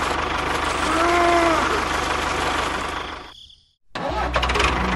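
Tractor engine idling steadily, with a brief pitched sound rising and falling about a second in. The engine fades out about three and a half seconds in, and after a moment of silence another engine starts idling.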